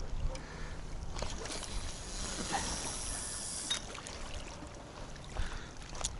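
Wind buffeting the microphone as a steady low rumble. A high hiss comes in about a second and a half in and cuts off suddenly near the middle, with a few light clicks and knocks.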